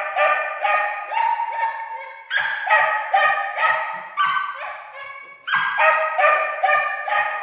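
A dog whining and yipping in high-pitched, repeated cries. They come in three bouts: one running on from just before, one starting about two and a half seconds in, and one about five and a half seconds in.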